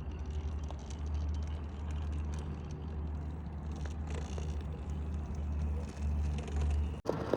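Scale RC rock crawler with a Hobbywing Quicrun Fusion SE brushless motor running slowly over rocks. The motor and drivetrain hum steadily over a constant low rumble, with scattered light clicks of tyres and chassis on rock. The sound breaks off abruptly near the end.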